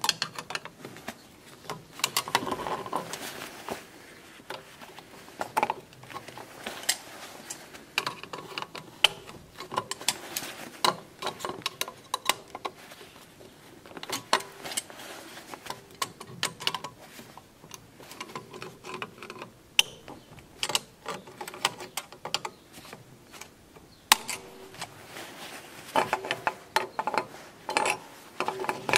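Irregular metallic clicks, taps and scraping as water pump pliers and gloved hands work a car's mechanical thermostat and its wire frame into an aluminium thermostat housing.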